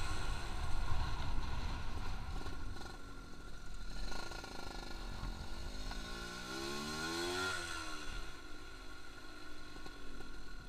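Freshly rebuilt, stock-tuned Suzuki Satria RU 120 two-stroke motorcycle engine accelerating hard down a straight. Its note climbs as it comes closer, then drops in pitch as it passes by about seven and a half seconds in and fades away.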